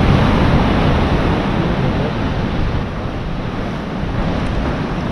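Sea surf washing on the shore with wind buffeting the microphone: a loud, steady rushing noise with no distinct events.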